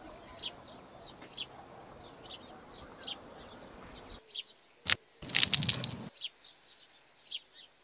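Small birds chirping in short repeated notes over a faint outdoor hiss. About five seconds in comes a sharp click, then a loud splash lasting about a second as an iced coffee is thrown into a person's face.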